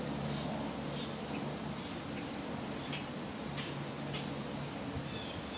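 Outdoor ambience: a steady hiss with a low hum, and faint short chirps of small birds every second or so, with a quick run of them near the end.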